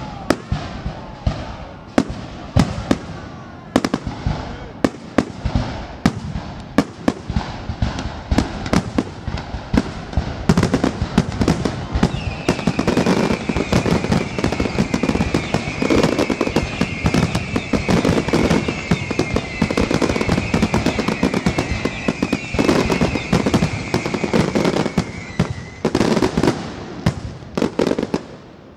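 Fireworks display with aerial shells bursting in a fast series of sharp bangs and crackles. About ten seconds in it thickens into an almost unbroken barrage. Through the middle runs a high wavering whistle that slowly falls in pitch.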